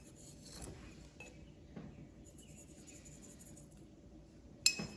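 A spoon clinking against a bowl as salt is spooned into a spice paste: a few faint taps, then one sharp clink near the end.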